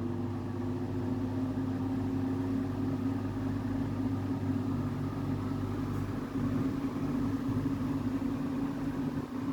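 National 401SM electric fan's KDK KB30B motor running, a steady hum with one clear low tone.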